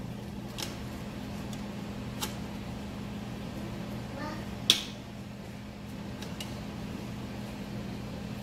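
A low steady hum with a few short, sharp clicks and taps from hands working with tortillas, filling and utensils at the counter, the loudest a single sharp tap about halfway through.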